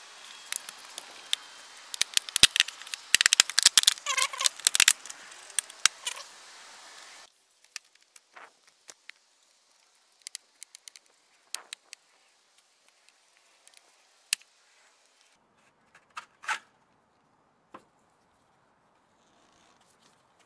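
Plastic trim clips and a car trim piece clicking and crackling as they are pried and slid off the car body by gloved hands. A dense run of clicks comes first, then only scattered single clicks after about seven seconds.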